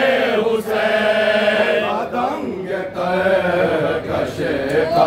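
Men's voices chanting an Urdu noha, a Shia mourning lament: slow sung phrases with long held, wavering notes, broken by short pauses about two and four seconds in.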